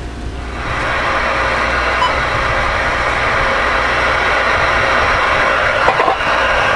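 Cobra 29LXBT CB radio's speaker hissing with receiver static. The hiss swells in about half a second in and then holds steady, with a couple of faint clicks near the end as the channel knob is turned.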